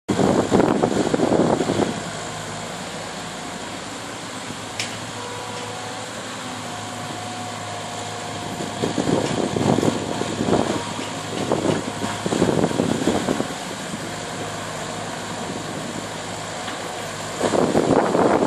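Caterpillar tracked excavator's diesel engine running steadily as the machine digs, growing louder in spells near the start, through the middle and near the end.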